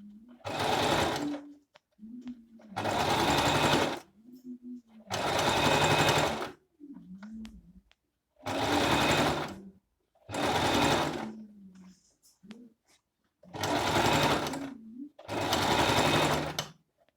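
Singer M3305 electric sewing machine running in about seven short bursts of roughly a second each, with brief stops between them, as a folded hem is stitched.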